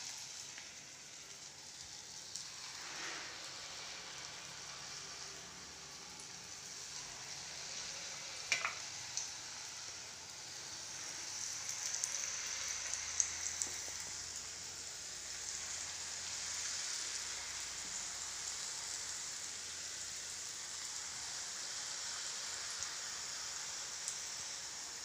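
Snake gourd strips in gram-flour batter deep-frying in hot oil in a kadai: a steady sizzle that grows louder about halfway through as more pieces go in, with a few sharp pops.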